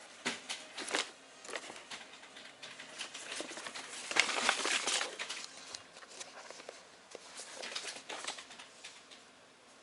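Irregular light clicks, taps and rustling, with a louder stretch of rustling about four seconds in.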